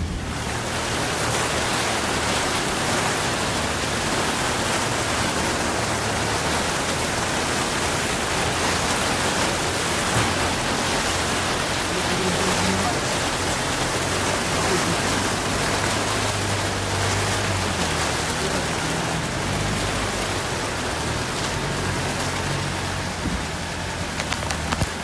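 Water rushing and splashing against a 4x4 as it wades through a long flooded track, a loud steady wash. The vehicle's engine runs low underneath, its pitch shifting up and down now and then.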